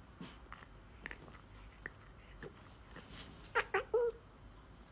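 Domestic tabby cat giving three short meows in quick succession about three and a half seconds in, after a few faint soft clicks.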